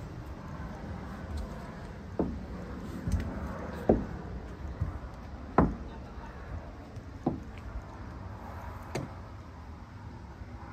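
Forearm crutch tips and a walking cast knocking on wooden deck boards as she crutches along: about six hollow knocks one to two seconds apart, over a steady low background rumble.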